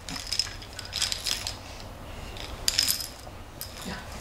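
A baby's plastic bead-and-ring rattle toy being handled and shaken, jingling and clicking in about four short bursts.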